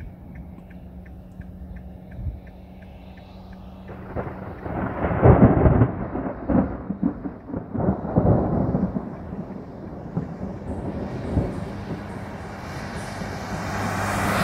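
Thunder rumbling loudly for several seconds, heard from inside a moving car over its steady hum. Near the end a rising hiss of tyres on the wet road comes in as another vehicle approaches.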